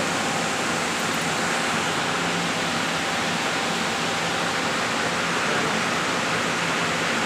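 Steady, loud rushing noise of running machinery with a faint low hum underneath, unchanging throughout.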